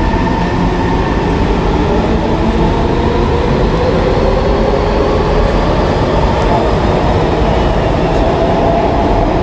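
KHI C151 metro train running along the platform with a steady rumble of wheels and motors; from about four seconds in, a motor whine rises in pitch as the train accelerates away.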